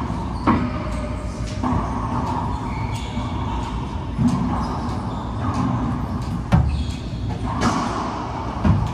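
Racquetball being played: several sharp, echoing hits of the ball against racquets and court walls, spaced one to four seconds apart, over a steady background hum.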